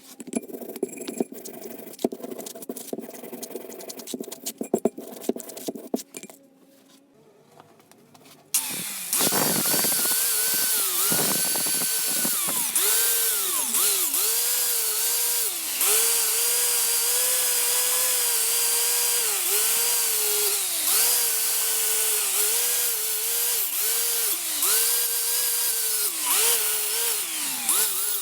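A run of small clicks and knocks, then about eight seconds in an electric power tool starts and runs steadily, its pitch sagging again and again as it is pressed onto the work.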